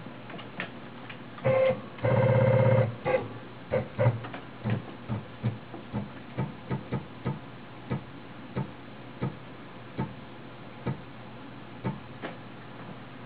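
Stepper motors of a Taig CNC mill jogging the Z axis: two longer whining moves, then a string of short separate blips, one or two a second, as the spot drill is stepped down in small increments onto a tool-length touch-off gauge.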